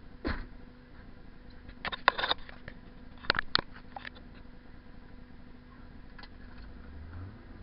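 Several sharp clicks and knocks from the camera and its mount being handled inside a car cabin: one early, a quick cluster about two seconds in, two more near three and a half seconds, and a faint one near six seconds, over a low steady hum.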